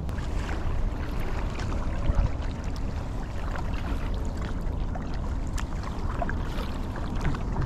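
Kayak on a flowing creek: water sloshing with scattered small knocks and clicks from paddle and hull, over a steady low rumble of wind on the microphone.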